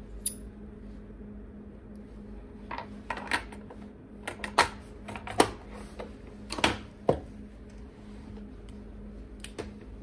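Short clicks and knocks from small objects being handled on a lab bench: one sharp click right at the start, then about a dozen between three and seven seconds in, over a steady low hum of lab equipment.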